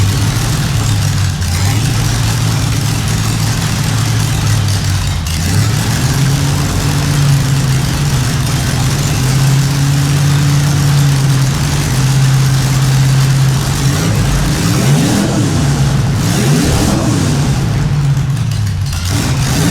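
A V8 engine in an Austin-Healey running steadily, its note stepping up about five seconds in, then revved up and let fall back twice near the end.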